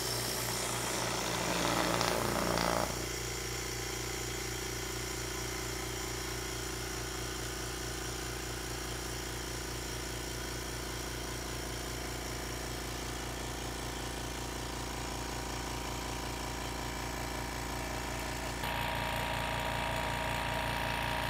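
Harbor Freight Fortress Ultra Quiet 2-gallon, 135 PSI air compressor running as it fills its tank from empty: a steady, quiet hum that the meter held close puts at around 70 decibels. It is louder for the first few seconds after starting, then settles, and grows slightly louder and brighter near the end.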